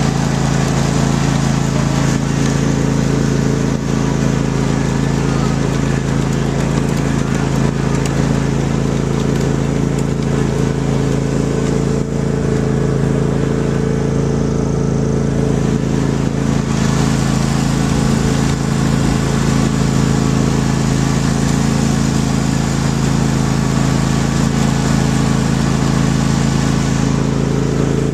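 An engine running steadily at a constant speed, an even drone with no revving or breaks.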